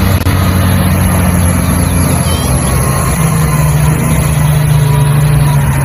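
Large mining haul truck's diesel engine running as the loaded truck drives along, a steady low drone over a dense rumbling noise; the engine note shifts slightly lower about three seconds in.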